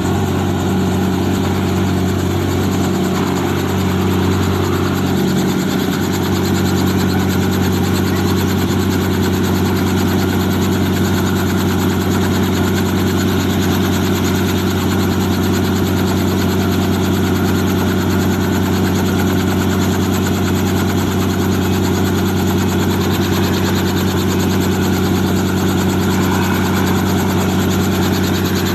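Small two-bladed helicopter running on the ground with its main rotor turning, a loud, steady engine and rotor hum that holds one pitch throughout.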